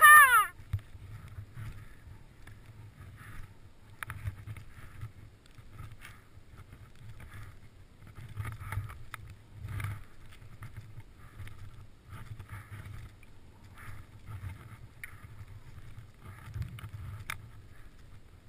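A skier's shout, cut off at the very start, then faint, irregular rustling and shuffling about once a second as the skier moves about in deep powder snow.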